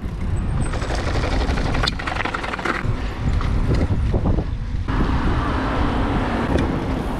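Street noise while riding a mountain bike through city traffic: a steady low rumble of traffic and rolling tyres with a few small clicks.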